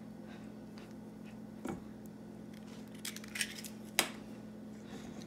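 A few light clicks and taps of kitchen handling as an egg is separated by hand over a stainless steel mixing bowl, over a steady low hum.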